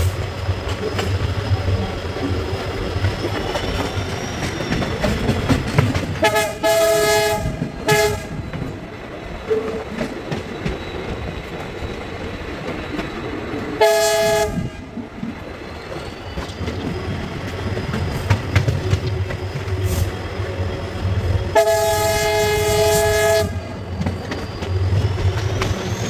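Horn of a WDP4 EMD diesel locomotive sounding four times: a long blast and a short one about six seconds in, a short blast about fourteen seconds in, and a blast of about two seconds near the end. Underneath runs the steady hum of the locomotive and the clickety-clack of the coach just behind it.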